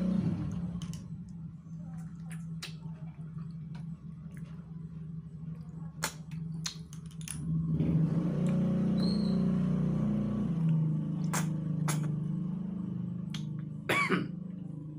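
Sucking and slurping the meat out of small cooked freshwater snail shells (tutut), with sharp, scattered clicks and smacks from the shells and lips and a louder slurp near the end, over a steady low hum.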